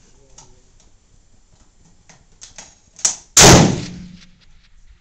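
A .30-06 rifle fires one shot about three and a half seconds in: a very loud, sharp report whose echo dies away over about a second. A short sharp click comes a moment before it.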